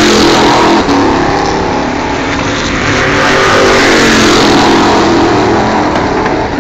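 Stock Car Brasil race cars' V8 engines at high revs passing the fence during practice. The engine note falls away after a loud pass near the start, then rises again as more cars approach and falls as they go by about four to five seconds in.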